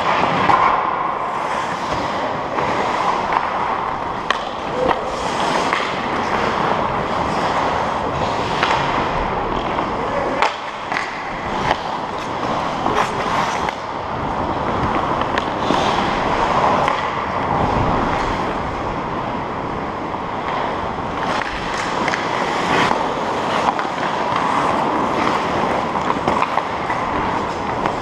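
Ice skate blades scraping and carving across rink ice in repeated strides, heard up close from the skater's own skates. A few sharp clacks of stick on puck come around the middle.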